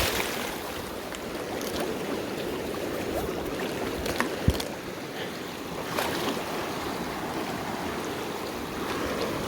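Fast-flowing river water rushing steadily, with a few light clicks and one sharp knock about four and a half seconds in.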